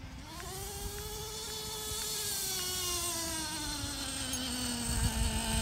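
Radio-controlled Traxxas monster truck driving: its drivetrain makes a steady buzzing whine. The pitch climbs in the first moment, then sinks slowly as it runs on, and the whine grows louder toward the end.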